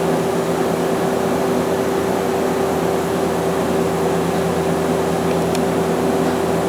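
Okuma LB200MW CNC lathe's main spindle running steadily at 3000 RPM behind the closed guard doors: an even machine hum with a steady tone.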